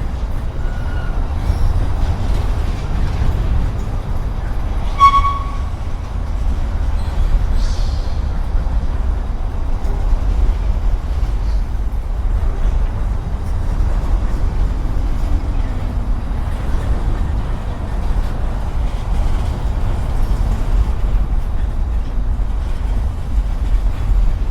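Norfolk Southern freight train rolling past on the track with a steady low rumble, a brief high wheel squeal about five seconds in, and a few faint clicks of wheels on rail.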